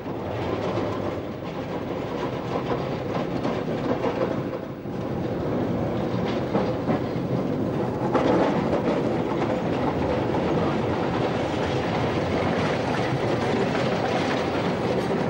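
Electric street tram running along its track, the steel wheels on the rails giving many clicks over a steady rumble. It grows louder about five seconds in and again near eight seconds.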